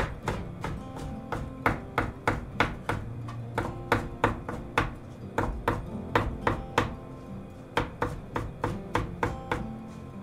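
Kitchen knife chopping mushrooms on a cutting board: quick, uneven knocks of the blade against the board, about three to four a second.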